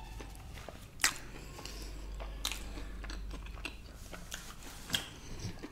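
Close-up chewing of a mouthful of crispy fried-chicken burger (KFC Zinger), with a few sharp crunches about a second, two and a half seconds and five seconds in.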